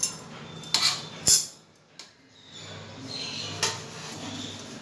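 A few sharp metal clinks and knocks from a pressure cooker and a steel plate as cooked corn cobs are lifted out of the cooker onto the plate, the loudest just over a second in.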